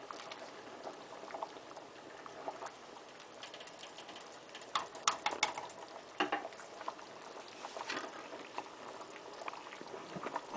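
Pot of soup boiling on the stove, with bubbles popping and crackling irregularly.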